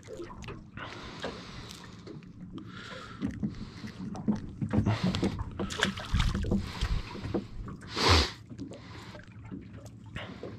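Water slapping against a small aluminium boat's hull, with rustling and knocks of a fish being unhooked, and a small splash as the whiting is dropped back into the water. A brief, louder rush of noise just after eight seconds in.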